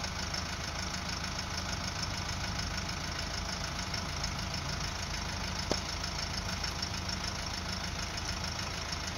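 A steady low mechanical drone, like a motor or engine running, with one short click about five and a half seconds in.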